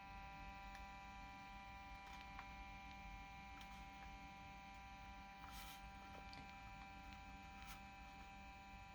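Near silence: a faint steady electrical hum with a few faint clicks, and no alarm sounding.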